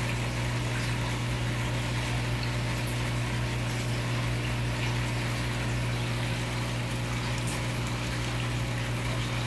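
Aquarium pump running: a steady low hum with an even water hiss over it.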